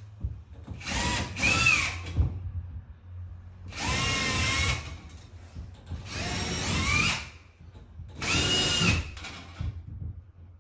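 A cordless drill-driver runs in four short bursts of about a second each, its whine rising in pitch as the motor spins up each time. It is fixing a metal washbasin mounting plate to a plasterboard wall.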